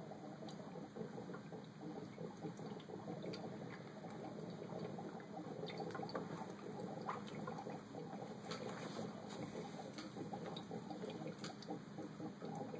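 Water boiling in a corked glass beaker heated by a propane Bunsen burner: steady bubbling with many scattered small pops. The boil turns the water to steam and drives the air out of the beaker.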